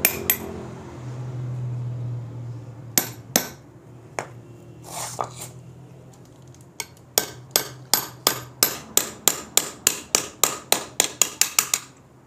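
A hammer striking a 27 mm socket to drive a new oil seal into a Honda CG125 front fork tube, with metallic taps. After a few separate strikes, a quick, even run of taps starts about seven seconds in, at roughly four a second and quickening near the end.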